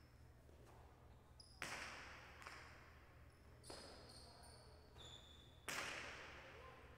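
Hard jai alai pelota smacking against the court: three sharp cracks about two seconds apart, each ringing on in the big court's echo.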